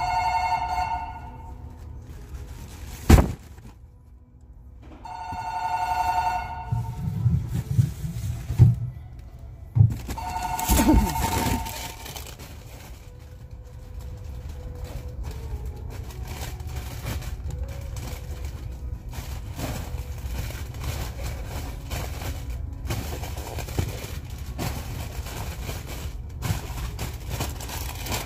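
A two-tone electronic ring, heard three times about five seconds apart, with a sharp knock and a couple of thuds in between. A steady low background hum with faint ticks follows.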